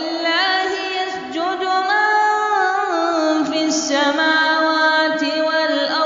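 A man's voice reciting the Quran in a calm, melodic style, drawing out long ornamented notes that glide up and down between pitches.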